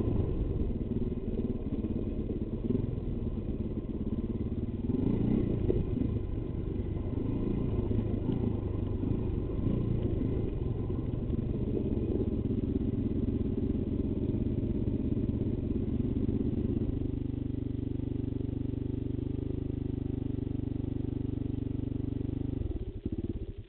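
Enduro motorcycle engine running at low revs on a rough downhill dirt track, with clatter from the bike. About two-thirds of the way through it settles to a steady idle, then cuts off abruptly near the end.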